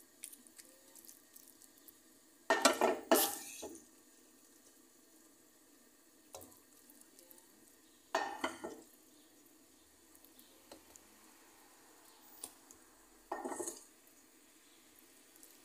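Wooden spatula stirring and scraping beef and vegetables in a frying pan, in three short bouts about five seconds apart, with only a faint steady background between them.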